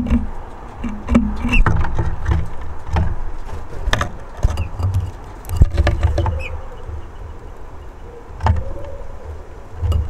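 Outdoor background noise: an uneven low rumble that swells and fades, with scattered clicks and taps and a few short, faint high bird chirps.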